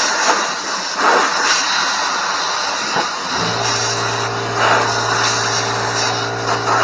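Compressed air hissing from a blow gun in gusts as dirt is blown away from the engine's oil opening. A steady low hum comes in about halfway through and carries on.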